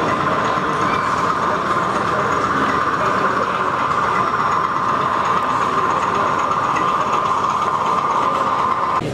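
Model diesel locomotives running on a model railway layout, giving a steady mid-pitched hum over a background hiss. The hum stops abruptly near the end.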